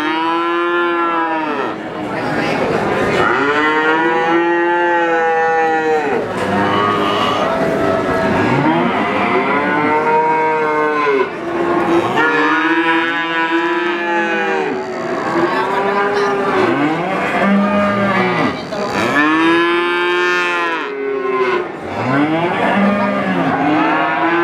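Young calves mooing over and over, about a dozen long calls one after another, each rising and then falling in pitch, some overlapping.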